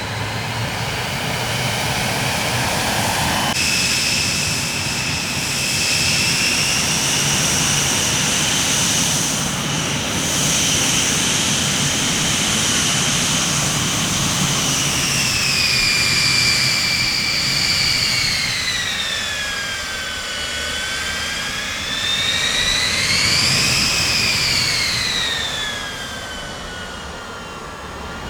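Jet aircraft engines running with a steady rush and a high turbine whine. The sound shifts suddenly a few seconds in. The whine then slides down in pitch, dips and rises again, then falls away near the end.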